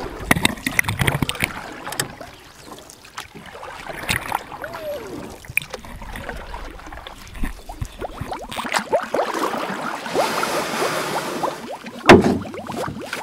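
Water splashing and sloshing close to a camera held at the pond's surface, with irregular small splashes and clicks. A single sharp, loud hit comes near the end.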